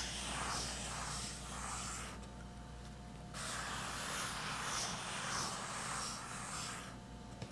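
Pencil scratching across sketchbook paper as wavy lines are drawn: a steady dry hiss that stops for about a second when the pencil is lifted, then starts again for the next wavy line.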